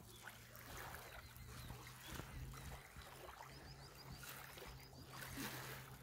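Faint lapping of small river waves on a sandy bank. A bird gives a quick run of high chirps a little past halfway.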